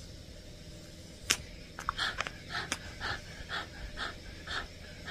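Border terrier panting with its mouth open, about two breaths a second, starting about two seconds in. A single sharp click comes just before.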